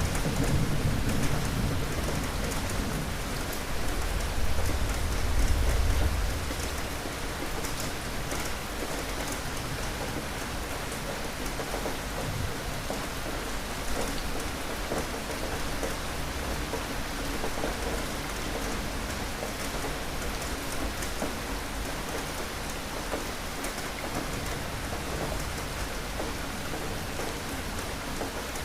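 Steady heavy rain falling, with a low rumble of thunder in the first six seconds or so that dies away, leaving only the rain.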